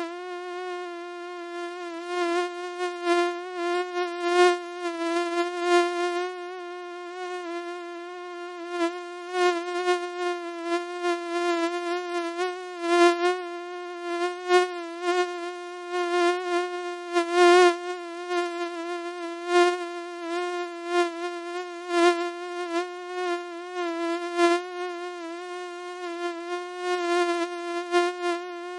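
Mosquito whining in flight close to the ear: a steady, thin buzz at one pitch, rich in overtones. It swells louder and fades again every second or so, as if the insect keeps drifting nearer and away.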